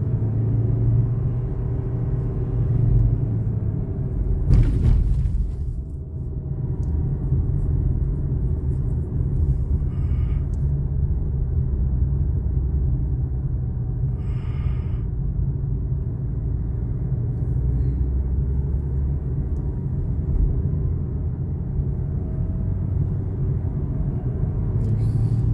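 Car driving along a road, heard from inside the cabin: a steady low rumble of engine and tyres, with one short, louder noise about four and a half seconds in.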